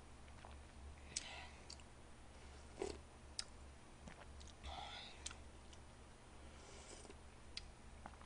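Faint, scattered clicks of a plastic spoon against disposable plates while eating, with a few soft mouth sounds and a low steady hum underneath.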